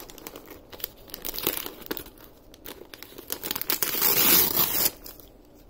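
Shiny wrapping paper crinkling and being torn off a present by hand, with many short crackles and a long, loud rip in the second half.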